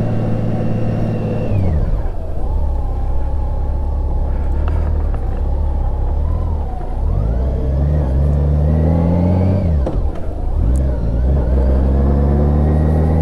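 Vehicle engine under way on the road. Its pitch drops about a second and a half in, holds steady, climbs from about seven seconds, falls sharply near ten seconds as at a gear change, then climbs again.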